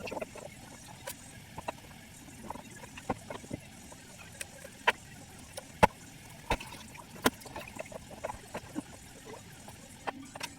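Irregular clicks and light knocks of hand work, with a few sharper, louder knocks a little past the middle.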